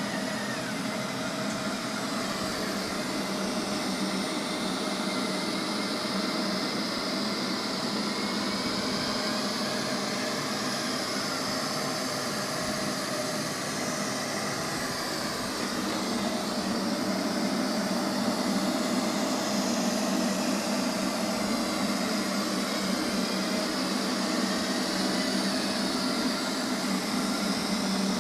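Robot vacuum cleaner running: a steady whir with a high whine that slowly drifts up and down in pitch, growing a little louder past the middle.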